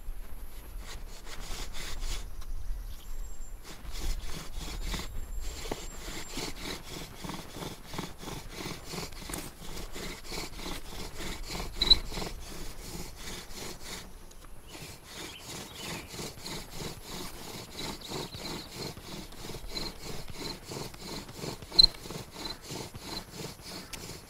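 A bow drill's elderberry spindle grinds in the notch of an elderberry fireboard as the bootlace bow is stroked back and forth in a steady rhythm. Two sharp clicks stand out, one about halfway through and one near the end. The notch is already full of dark dust, and this is the stage of adding speed and pressure to form a coal.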